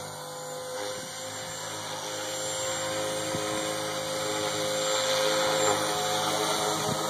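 Blade 450X electric RC helicopter in flight: a steady high whine from its brushless motor and rotor head, growing gradually louder.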